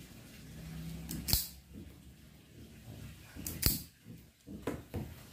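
Self-adjusting wire stripper working on an electrical wire's insulation: two sharp snaps, about a second in and again near four seconds, followed by a few lighter clicks.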